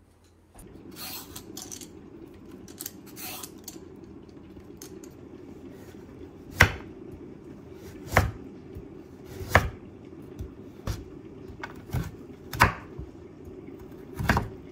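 Chef's knife cutting a carrot into strips on a wooden cutting board, over a steady low hum. The blade strikes the board about seven times in the second half, each a sharp knock.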